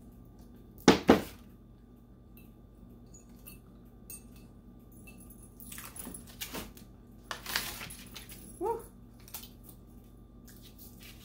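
Shrink wrap, transfer paper and heat tape being peeled and pulled off a hot stainless steel dog bowl, with scattered crinkling and ripping. Two sharp knocks, the loudest sounds, come about a second in, and a short rising squeak comes near the end.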